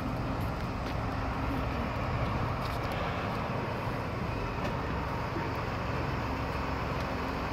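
Engine of a large marina forklift running steadily while it carries a pontoon boat on its forks.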